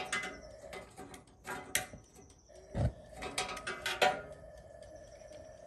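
Clicking and ratcheting of a turkey fryer's gas timer valve being turned by hand, with one low thump about three seconds in.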